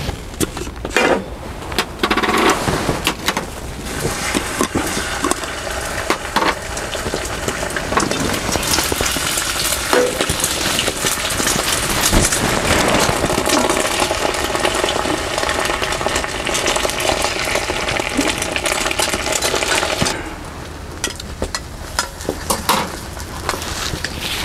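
Rice, egg and crab sticks frying in a pan over high heat, sizzling, with a utensil scraping and tapping the pan as the mix is stirred. The sizzle falls away near the end.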